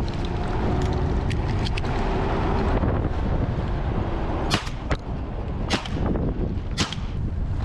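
Three 12-gauge shotgun shots about a second apart, fired from a moving vehicle, over steady engine rumble and wind noise on the microphone.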